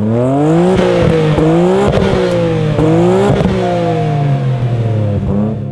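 Car engine revved hard up and down about five times, its pitch climbing and falling again each time, with a few sharp cracks near the peaks.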